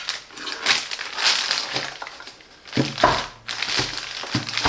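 Plastic packaging being handled and crinkled: a run of irregular crackling rustles.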